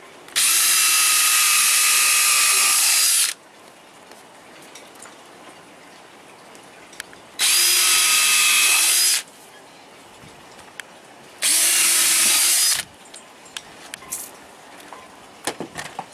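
A power drill drives screws for canvas snap fasteners in three separate runs: a long one of about three seconds, then two shorter ones. Light clicks and taps follow near the end.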